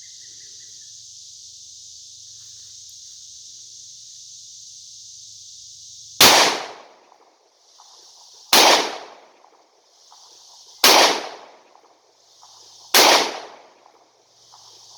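Four single 9mm pistol shots from a Smith & Wesson M&P Shield 2.0 firing Sellier & Bellot 115-grain full-metal-jacket rounds, fired about two seconds apart starting some six seconds in, each with a brief ring-out. Crickets chirr steadily before and between the shots.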